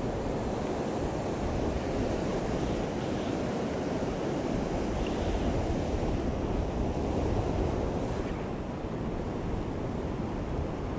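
Steady rush of river current flowing past a wading angler, with wind buffeting the microphone.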